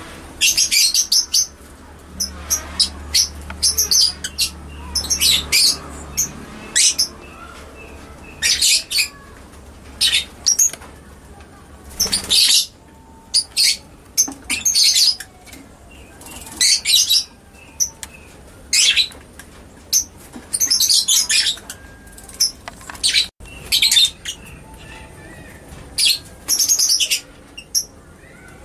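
Lovebird calling: runs of sharp, high-pitched chirps in short irregular clusters, separated by brief pauses.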